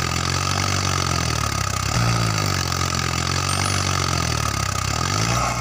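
Low engine sound of a tractor running steadily, its pitch dipping slightly and recovering a couple of times as if under load.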